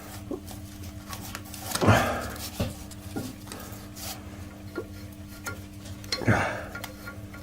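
Metal hand tools and bolts clinking and clanking against metal parts while a hydraulic pump is bolted in, with two louder clanks about two seconds in and near the end, over a faint steady hum.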